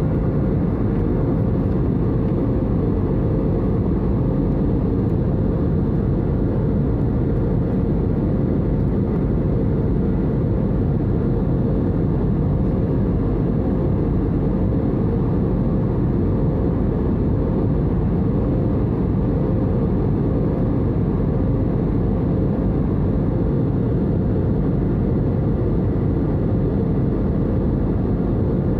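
Jet airliner cabin noise in cruise flight, heard from inside the cabin: a steady low rumble of the engines and rushing air, with a faint constant hum tone above it.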